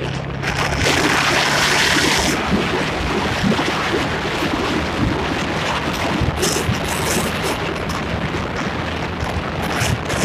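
Motorbike engine running steadily while riding, under heavy wind noise on the microphone; a louder hissing rush comes in about half a second in and lasts under two seconds.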